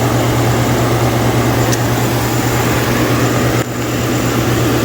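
2012 Chevrolet Silverado's 5.3 L V8 idling steadily, an engine with a random misfire, mostly on cylinder one (codes P0300 and P0301).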